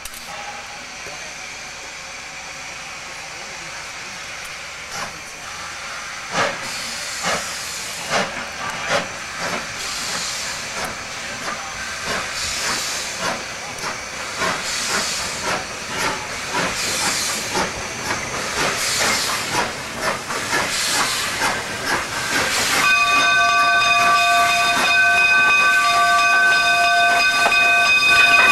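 C&TS #489, a narrow-gauge K-36 Mikado steam locomotive, working slowly through the yard under a steady hiss of steam, its exhaust chuffing about once a second. About two-thirds of the way in, a louder steady blow of steam with several ringing whistle-like tones starts and holds.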